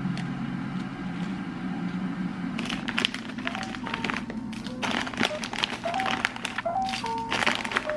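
Background music, joined from about two and a half seconds in by the crinkling and rustling of a plastic snack-style packet as dried red chillies are pulled out of it.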